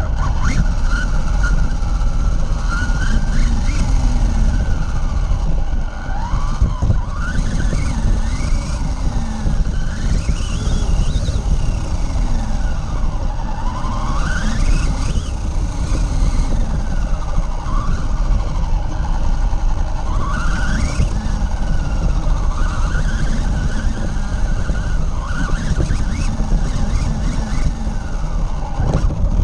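Radio-controlled car's motor revving up and down over and over as it drives, its pitch rising and falling every second or two. A heavy rumble and rattle comes from the chassis and tyres running over the ground, picked up by a camera mounted on the car.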